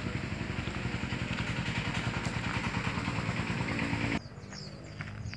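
A small engine running close by with a rapid, even pulse, cutting off abruptly about four seconds in; birds chirp after that.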